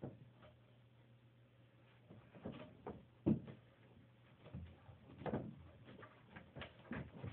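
Irregular knocks and scuffs against a wooden dresser as a Shiba Inu puppy squirms and wriggles beneath it, the sharpest knock a little over three seconds in.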